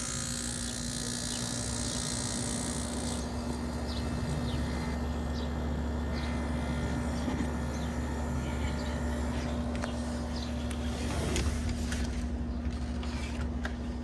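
GE Quiet Aire room air conditioner running just after being switched on: a steady hum with a constant tone over the rush of its fan.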